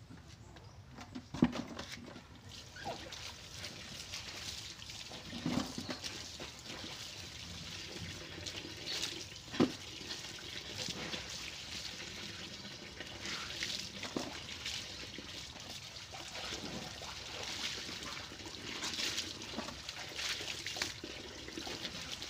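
Water from a garden hose pouring and splashing into a plastic bucket and a basin of laundry, with hands working the clothes in the water. A few sharp knocks, the loudest about a second and a half in and again near ten seconds.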